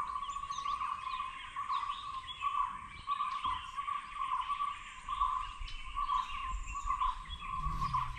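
Several wild birds chirping and calling in forest ambience, short calls overlapping throughout. Under them runs a steady high drone that swells and fades about once a second.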